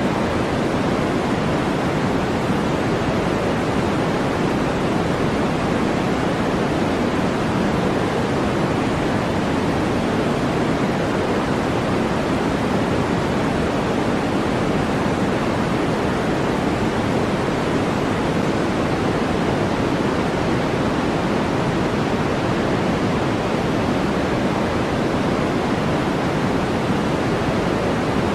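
Steady synthetic noise sold as white noise: an even, unbroken hiss that never changes, fuller in the lows and softer in the highs, like a rushing waterfall.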